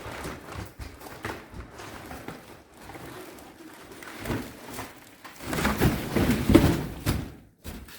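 Rummaging through a cardboard shipping box: irregular rustling, scraping and knocking of packaging and loose parts, louder and busier for a second or two near the end.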